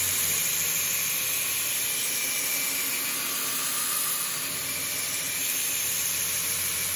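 Belt grinder with a coarse 24-grit abrasive belt grinding a steel knife blade's bevel held in a jig: a steady hiss of abrasive on steel over the motor's hum. The belt has just been dressed with a diamond and slowed down so that it cuts the steel rather than heating it.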